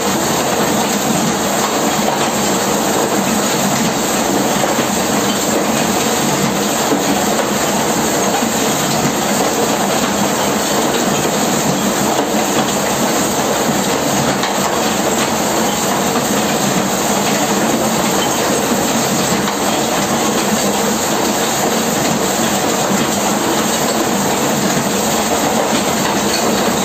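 Rotary huller running, its big steel drum turning and pounding lignite inside: a steady, dense rattling clatter with a faint hum under it.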